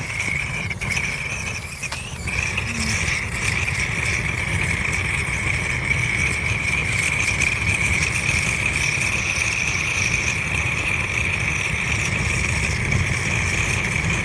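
Portable gas torch burner running steadily, a low rumbling flame with a steady high whistle, held to damp kindling to light a campfire.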